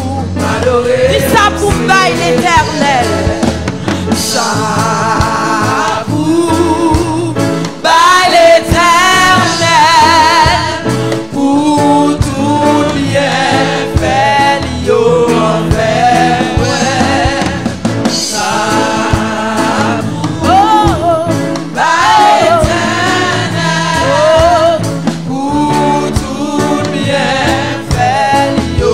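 Church worship team singing a gospel song together into microphones, with instrumental accompaniment underneath and long held notes sung with vibrato.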